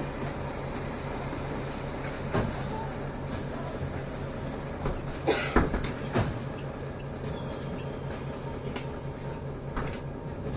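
Ride inside a city bus: a steady low engine and road hum, with a cluster of clunks and short high squeaks about halfway through.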